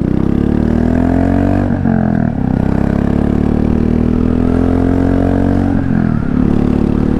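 Royal Enfield Classic 350's single-cylinder engine through an aftermarket MTG sport exhaust tip, accelerating on the road. Its exhaust note climbs in pitch and dips twice, at about two and six seconds in, as it shifts up.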